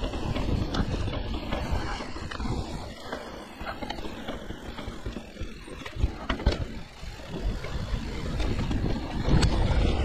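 Mountain bike rolling fast down a dry dirt trail: steady tyre noise on dirt with wind rumbling on the microphone, and sharp clacks and knocks as the bike rattles over bumps. It grows louder near the end as the trail opens out.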